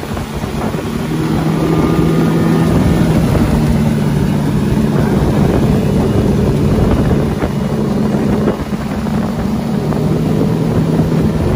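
Outboard motor running hard as the boat pulls a towed tube, with wake spray and wind rushing past. The steady engine hum swells over the first couple of seconds as the boat picks up speed.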